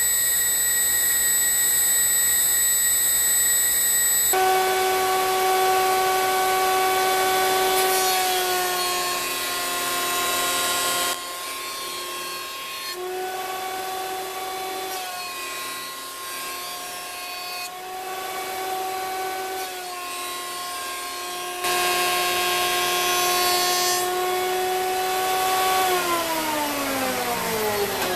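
A CNC router spindle cutting the edge of a UHMW plastic plate with a steady high whine for about the first four seconds. Then a Delta benchtop jointer runs while UHMW edges are jointed. Its motor tone grows louder and quieter in stretches and falls in pitch near the end as the machine spins down.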